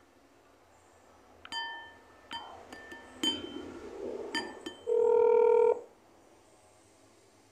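Mobile phone sounds: several short pitched pings with taps, then one steady electronic beep of about a second that cuts off sharply.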